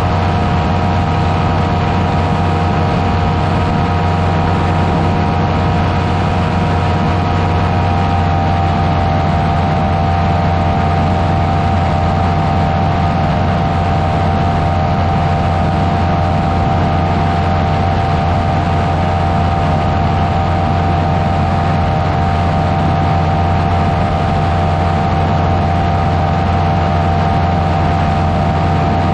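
Buckeye Dream Machine powered parachute's engine and propeller running steadily in cruise flight, a constant drone heard on board. The engine note steps up slightly about eight seconds in.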